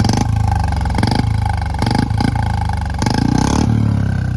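Fuel-injected BS6 Royal Enfield Standard 350 single-cylinder engine, with stock bend pipe and an aftermarket Indori silencer, revved in several quick throttle blips. The longest blip comes about three seconds in, then the revs fall back toward idle. The blips are an attempt to make it fire backfire pops, which the injected engine is not expected to give.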